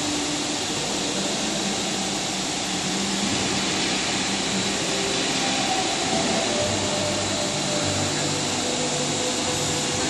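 Xinjie vertical automatic stone profile machine running with a slab being conveyed through its grinding heads: a steady mechanical whir and hiss, with low hum tones that shift in pitch.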